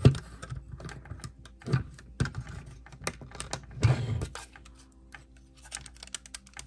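Hard clear plastic crystal puzzle pieces clicking and tapping together as a small mast is pressed into place and the assembled model is handled. The clicks come irregularly, with a sharp one right at the start and a longer rattling scrape about four seconds in.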